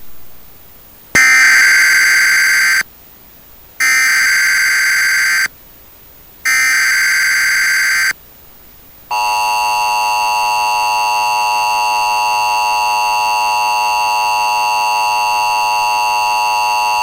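Emergency Alert System broadcast: three short bursts of SAME data header, each about a second and a half long with about a second between them, then the steady two-tone EAS attention signal for about eight seconds. Together they herald a National Weather Service flash flood warning.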